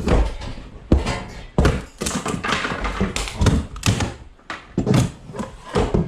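Irregular thuds, knocks and bangs of demolition work as flood-damaged wall paneling is struck and torn out.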